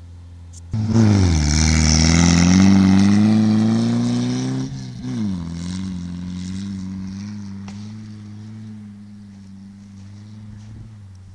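Škoda rally car engine starting to rev hard about a second in as the car accelerates away over dirt, the engine note climbing. About four and a half seconds in the note breaks briefly at a gear change, then it settles into a steadier note that fades as the car drives off.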